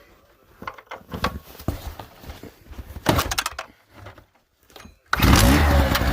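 Scattered knocks and rattles of handling, then about five seconds in a Harbor Freight Storm Cat portable generator's small engine catches with a quick rise in pitch and settles into a steady run.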